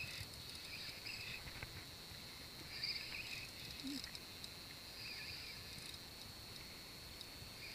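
Fishing reel buzzing in short spells, one every couple of seconds, as a hooked red drum is fought on a hard-bent rod, over a faint steady high whine.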